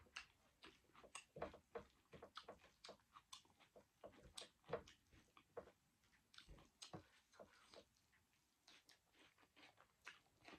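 Faint eating sounds: a person chewing, with many short, scattered lip smacks and mouth clicks.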